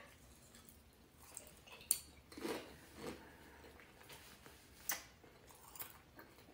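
Faint chewing: a person's quiet mouth sounds, a few soft smacks and clicks spaced a second or so apart.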